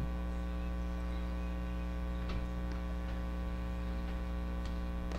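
Steady electrical mains hum, a low buzz with many evenly spaced overtones, with a few faint ticks in the middle and near the end.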